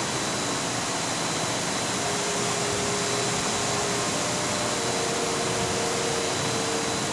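Steady rush of air and motor hum from running condenser fans on a rooftop refrigeration condenser bank, with a faint steady high whine.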